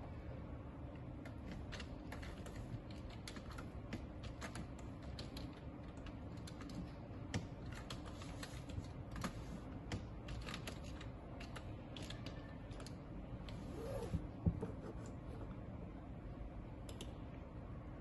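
Computer keyboard being typed on: short irregular runs of key clicks over a steady low hum. The clicks thin out after about twelve seconds, with one louder knock about fourteen seconds in.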